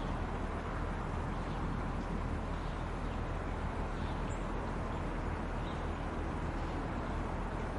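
Steady outdoor background rumble and hiss at an even level, with a few faint, short high chirps now and then.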